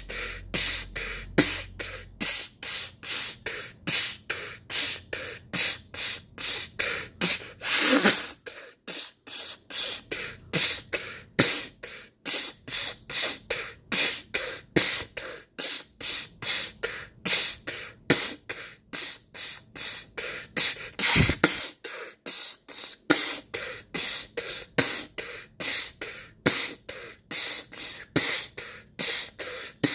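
A person making percussive mouth sounds, beatbox-style, through a hand cupped over the mouth: a steady run of short hissing puffs, about two to three a second.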